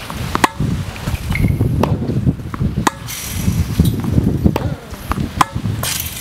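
Tennis balls struck with rackets and bouncing on a hard court: a string of sharp pops, about one every half second to second, over a steady low rumble.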